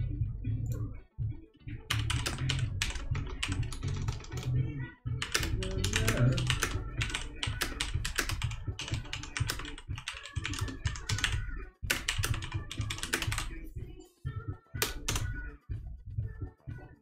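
Computer keyboard typing in quick runs of clicks, with short pauses between runs, over background music with a steady bass line.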